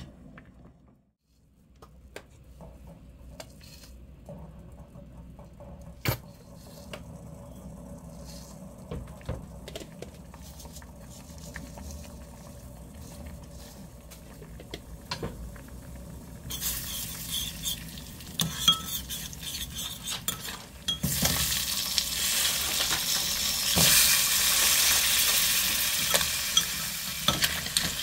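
Hot oil sizzling and being stirred in an earthenware pot, with chili flakes and then clams and shrimp frying in it. The first half is fairly quiet with a few light clicks; the sizzle starts a little past halfway and gets much louder for the last quarter.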